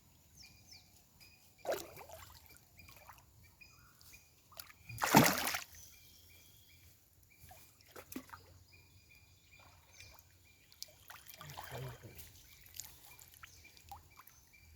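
River water splashing and sloshing, with one loud splash about five seconds in and smaller ones before and after, over short repeated bird chirps.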